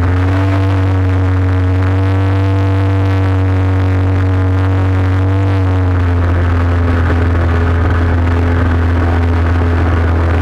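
ATV engine running steadily with a heavy low rumble, its pitch dropping about six seconds in as the machine slows down.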